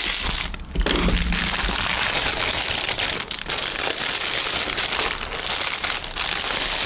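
Thin clear plastic bag crinkling as it is opened and pulled off a plastic model-kit sprue, with a short lull just under a second in.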